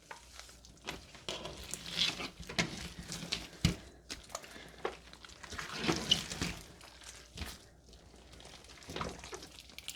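Hands squeezing and kneading a large, heavy mass of mixed slimes with beads in it, making irregular wet squelches and small clicks.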